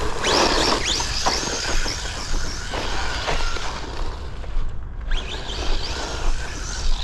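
The 3S brushless motor of a ZD Racing MT16 1/16 RC monster truck whining under throttle, rising in pitch several times as the truck speeds up, over tyre and drivetrain noise on grass. The whine briefly drops away about five seconds in.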